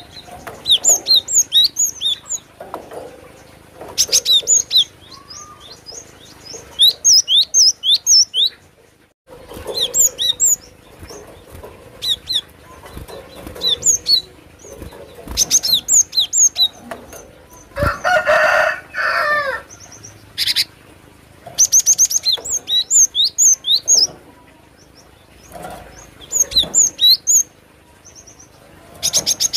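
Cinereous tit (glatik batu) calling in repeated short bursts of rapid, high, sharp chirps, each burst lasting about a second with brief pauses between. About eighteen seconds in, a lower, harsher call of a few notes stands out.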